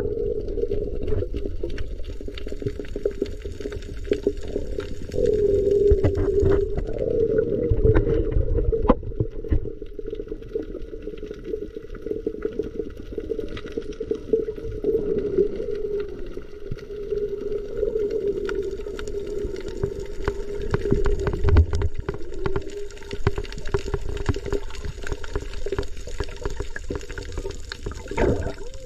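Underwater sound over a coral reef, heard through an action camera's waterproof housing: a muffled low rumble of moving water with a steady, wavering low hum and many faint scattered clicks.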